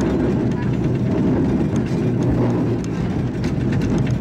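Steady low rumble of a vehicle running along a city street, heard from inside the vehicle, with a few faint clicks.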